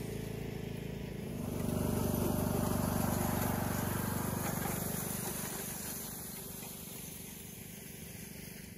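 John Deere E110 riding lawn mower engine running as the mower drives by, growing louder about a second and a half in and then fading away.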